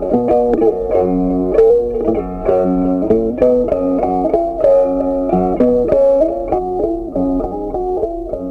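Background music: a melody of short plucked notes that change several times a second.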